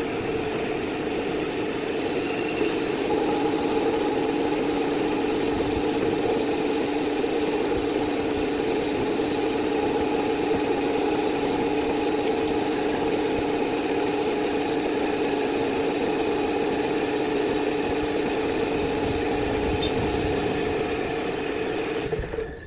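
Metal lathe running steadily, a continuous machine hum at a constant pitch that cuts off sharply at the end.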